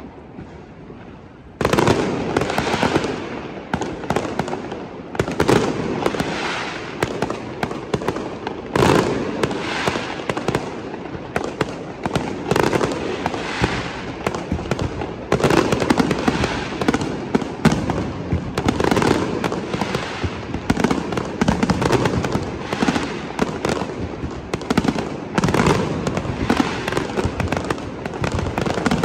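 Aerial fireworks shells bursting in a dense, continuous run of bangs and crackles, starting suddenly a second or two in after a quieter moment.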